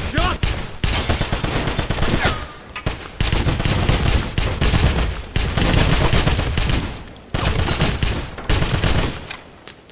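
Video game gunfire: rapid automatic weapon fire in long volleys, with brief lulls about two and a half and seven seconds in, easing off near the end.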